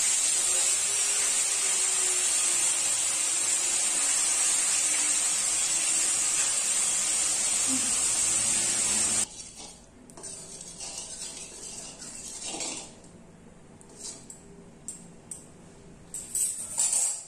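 Fish sizzling as it fries in hot oil in a steel kadhai, a steady loud hiss that cuts off abruptly about nine seconds in. After that, quieter kitchen sounds with light clicks and a few sharper clinks near the end.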